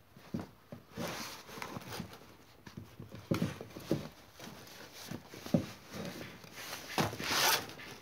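Hands pulling and pushing a rubber wheelbarrow tyre on its steel rim: irregular knocks and thumps of rubber and rim, with rubbing, and a longer scraping rub near the end.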